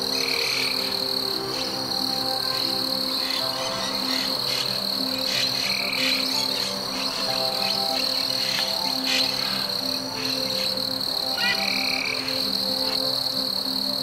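Rainforest ambience: a steady high-pitched insect drone with frogs croaking throughout.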